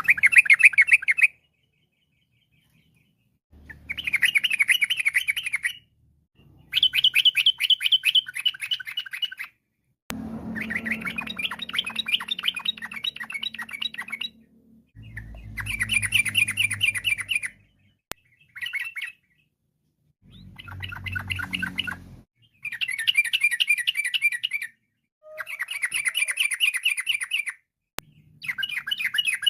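Yellow-vented bulbul (trucukan) singing in bursts of rapid, chattering repeated notes. There are about ten phrases, each a second or two long, separated by short pauses.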